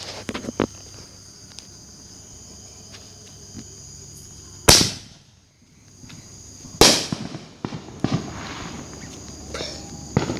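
Two loud firework bangs about two seconds apart, each with a short fading tail, over the steady high chirring of insects.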